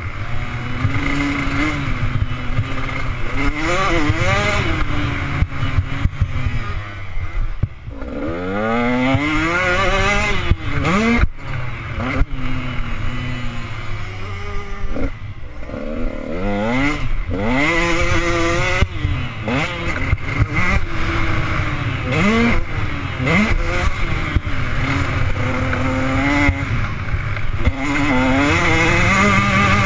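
Motocross bike engine, heard from the rider's helmet camera, revving up hard and dropping again over and over as the rider accelerates, shifts and shuts off around a dirt track, with a rushing noise and occasional clatter under it.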